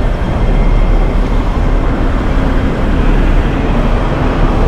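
Loud, steady rumble of street traffic.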